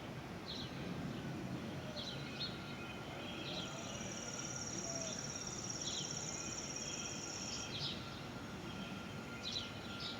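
Small birds chirping in short, repeated calls, over a steady outdoor background hiss. A high, even trill runs for about four seconds in the middle.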